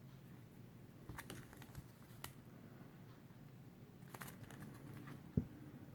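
Comic books being handled and swapped: faint crinkling and light taps, with a soft knock near the end.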